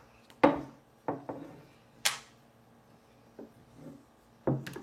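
Irregular knocks and taps of Play-Doh tools, a rolling pin and plastic shape-cutter molds, against a tabletop, with a brief scrape about two seconds in.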